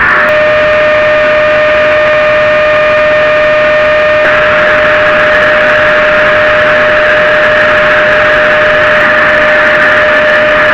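Small vacuum cleaner running steadily: a loud rush of air under a steady motor whine.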